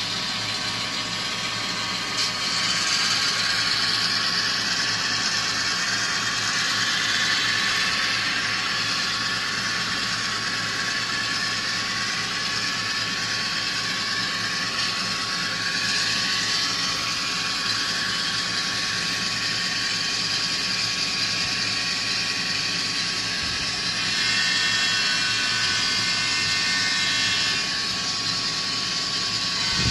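Athearn Genesis GP38-2 model diesel locomotive's onboard sound decoder playing its diesel engine sound through the small speaker as the model runs, with a steady hiss and an engine pitch that slowly rises and falls. Near the end a horn sounds for about four seconds.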